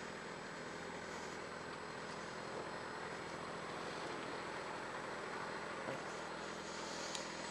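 Yamaha FZ6 inline-four motorcycle engine idling and running at walking pace as the bike rolls to a stop: a steady hum under an even hiss. It is heard through a helmet-mounted camera.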